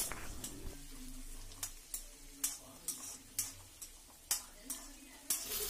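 A slotted steel spatula scraping and tapping against a kadai, about ten short strokes, as small onions and mint leaves are stirred in hot oil, with a faint sizzle of frying underneath.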